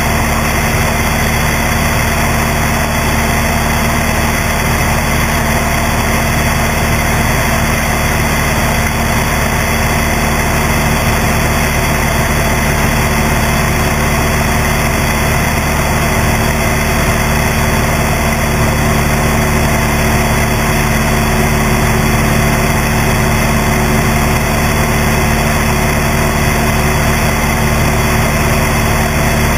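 Cessna 172's piston engine and propeller running steadily in level flight, heard from a camera mounted on the wing strut.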